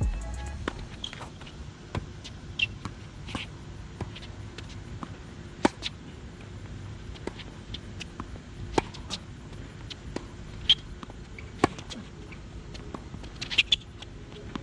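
Tennis rally on a hard court: sharp pops of rackets hitting the ball and the ball bouncing, coming every second or two, with a quick pair of hits near the end.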